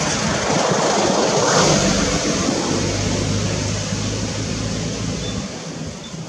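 A motor vehicle passing: a rushing noise that swells about a second and a half in and slowly fades, with a steady low engine hum through the middle.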